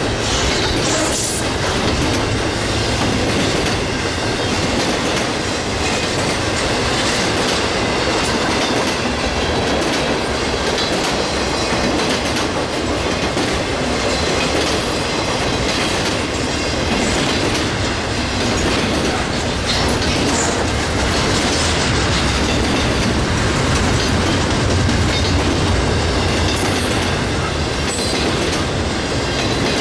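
Freight train rolling past at steady speed, its wheels clicking over the rail joints in a continuous clickety-clack.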